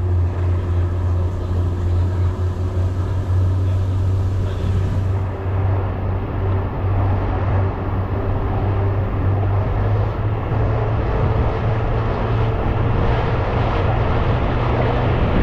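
Boat engine running steadily under way: a constant low drone with a rushing haze of wind and water over it.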